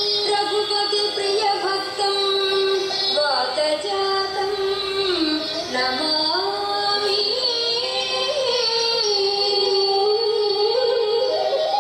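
Indian classical devotional music: a single melodic line of long held notes that bend and slide in pitch.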